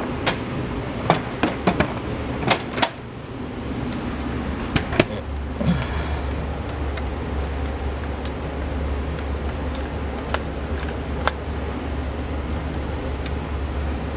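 Plastic clicks and knocks from handling a cordless stick vacuum, several in quick succession in the first few seconds, then a steady low hum comes in about five seconds in.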